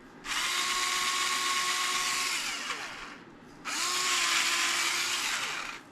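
Battery-powered, tilt-activated electric spice grinder running twice for about two seconds each time. Its small motor gives a steady whir over a hiss and winds down in pitch as it stops.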